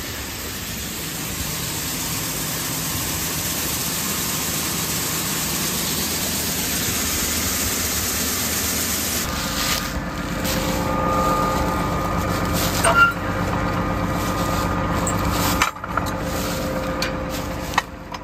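Corn pouring into a steel grain bin as it is filled, a steady rushing noise. About nine seconds in the sound changes abruptly to an engine running with a steady hum, with a few sharp knocks.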